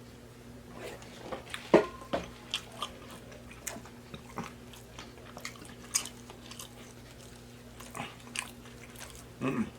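Close-up chewing of chicken nuggets, with irregular wet mouth clicks and smacks, a few of them sharper and louder, over a steady low hum.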